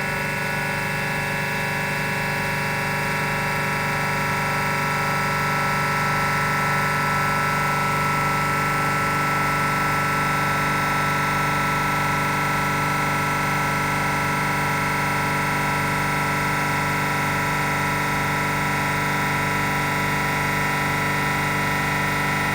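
Frascold Z40-126Y semi-hermetic screw compressor running steadily under load: a constant mechanical drone with several fixed whining tones.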